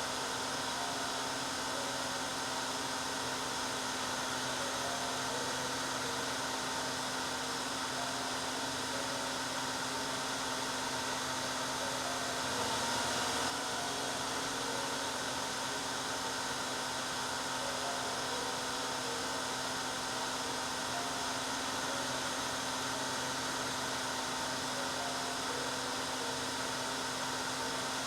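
Hair dryer running continuously, a steady even whoosh of air with a motor hum underneath and a small brief swell about halfway through.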